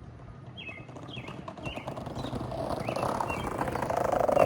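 Skateboard wheels rolling over pavement, growing steadily louder as the board approaches, with a rapid clatter of small ticks from the ground's grit and joints. Birds chirp faintly in the first half.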